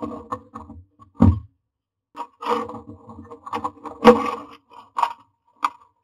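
Common myna moving about inside a wooden nest box: irregular scratching and scraping on the wood and dry nest grass, broken by sharp knocks, one about a second in and the loudest about four seconds in.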